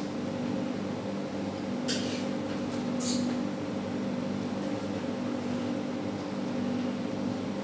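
Steady hum of a kitchen range hood's exhaust fan running above a gas stove, with two short sharp sounds about two and three seconds in as the pot is handled.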